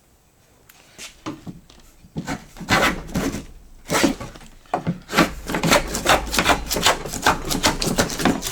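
Stanley 220 block plane being pushed across a wooden board in short scraping strokes, a few at first and then quickly, about three a second, taking off a full-width shaving.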